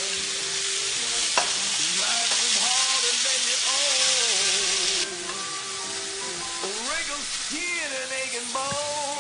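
Food sizzling and frying in a hot pan, with the sizzle dropping sharply about five seconds in. Background music with a melody plays over it.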